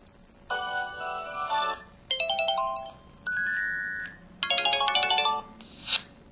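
MS350 mobile phone playing a run of its built-in electronic ringtone and effect sounds through its speaker: five short melodic jingles, each under about a second and a half, one after another with brief gaps.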